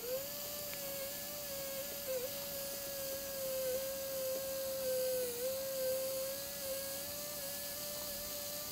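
Slow-speed dental handpiece spinning a size 2 Gates Glidden drill in a brush-stroking motion inside a root canal: a steady whine that rises quickly as it starts up and dips slightly in pitch a couple of times.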